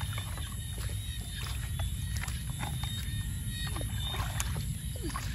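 Water splashing and dripping as a plastic bottle on the end of a pole is moved through pond water and lifted out, with scattered short splashes and drips, over a steady low rumble.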